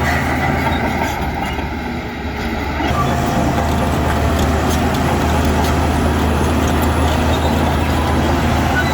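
Heavy diesel engine of construction machinery running steadily under load, with a brief dip in level about a second in.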